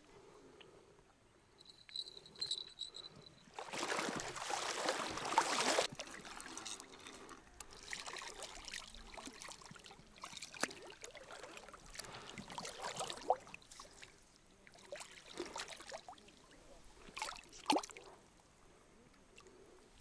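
A small hooked fish splashing and thrashing at the water's surface in irregular bursts as it is drawn in to the bank, the longest splashing about four seconds in.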